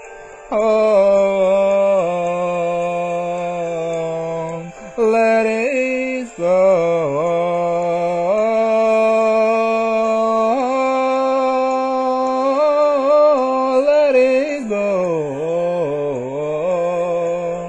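A singer's wordless vocalising: long held notes with slides and wavering runs between them, pausing briefly twice.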